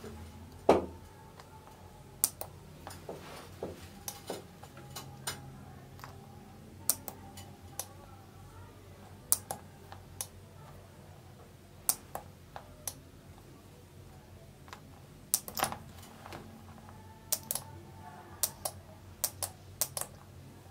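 Small sharp clicks at irregular intervals, about two dozen, the loudest about a second in, from a homemade transistor timer circuit being worked by hand: a tactile push button being pressed and parts of the circuit switching.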